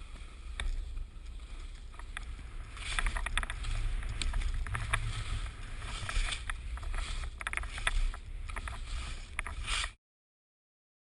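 Wind buffeting the microphone as a steady low rumble, with scattered clicks and crackles from about three seconds in. The sound cuts off suddenly near the end.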